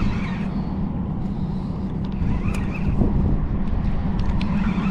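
Steady low hum of anchored cargo ships running their engines, with a few faint clicks.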